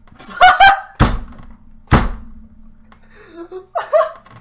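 Two heavy thuds close to the microphone, about a second apart, the loudest sounds here. Short, loud vocal cries come just before the first thud and again near the end.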